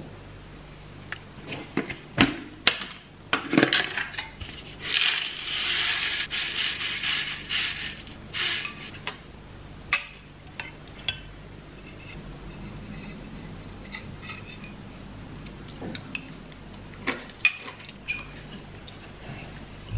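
Metal spoon clinking and scraping against a ceramic bowl as yogurt is spooned in and granola stirred, in scattered sharp clicks, some ringing briefly. About five seconds in comes a dry rattling rush lasting about three seconds, as granola goes into the bowl.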